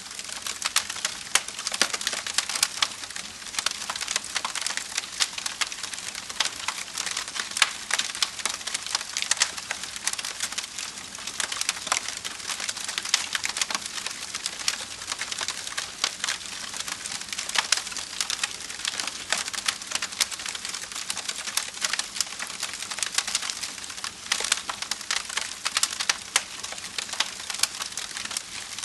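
Wood fire crackling: a dense, steady run of small pops and snaps over a soft hiss, with a few louder snaps.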